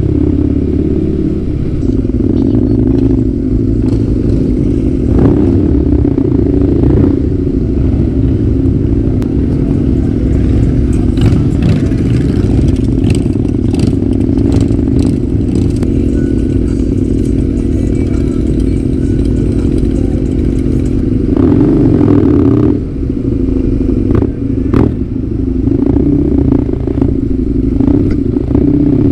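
Husqvarna Nuda 900R's parallel-twin engine running through an aftermarket full exhaust at low road speed, a steady throb. It grows louder about 21 seconds in and drops off sharply about 23 seconds in.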